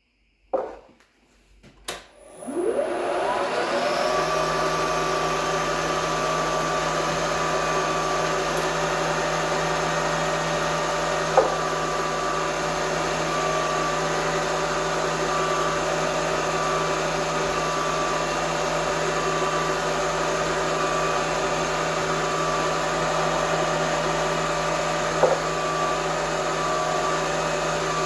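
Milling machine spindle switched on with a click, spinning up over a couple of seconds, then running at a steady whine while a hole is drilled. Two short clicks come later, one about a third of the way through and one near the end.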